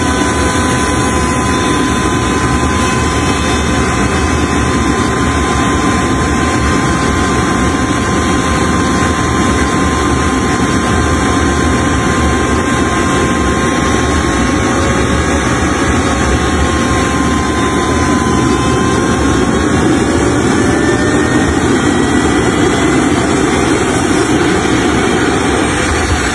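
Homemade small jet engine running on a test stand: a loud rushing roar with a steady high whine, which dips slightly a little past halfway and then climbs again.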